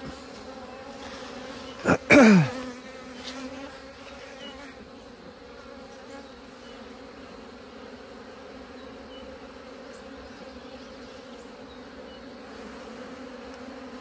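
Honey bees of a hived swarm humming steadily around an open hive box with the comb lifted out. About two seconds in, a brief louder knock and a short sound that falls in pitch cut across the hum.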